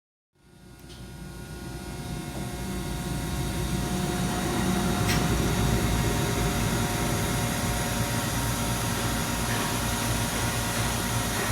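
Steady machine hum of a Mazak Super Turbo X48 CO2 laser cutter running under power, with several steady tones over a rushing noise. It swells up over the first few seconds, then holds level.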